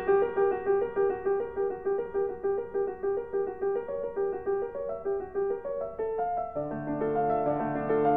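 Piano music: a single note repeated about three times a second under a slow melody, with fuller, held chords and lower notes joining about two-thirds of the way in.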